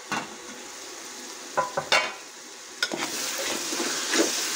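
A few sharp metal clinks from an aluminium pot lid and spoon, then from about three seconds in onion-and-tomato masala sizzling in the pot as a spoon stirs it.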